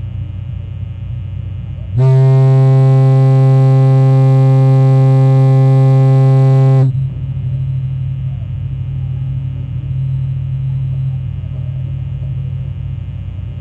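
Foghorn sounding one long, deep, steady blast of about five seconds, starting about two seconds in and cutting off sharply, over a steady low rumble.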